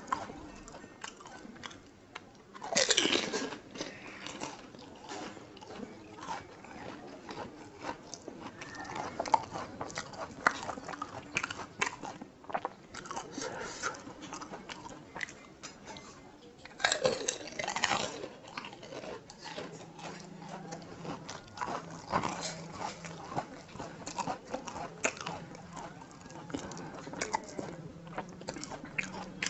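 Close-up crunching and chewing of fuchka: crisp hollow puri shells, dipped in tamarind water, bitten whole. Many short crunches run throughout, with two louder, longer bursts of mouth noise about three seconds in and again about seventeen seconds in.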